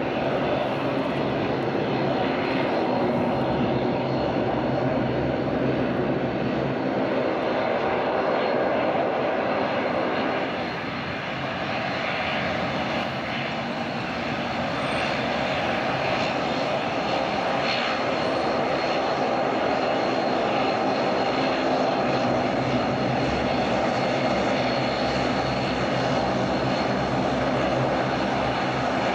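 Bombardier Dash 8 Q400 turboprop taxiing, its two turboprop engines and propellers giving a steady drone made up of several held pitches. The drone eases slightly for a moment about a third of the way in.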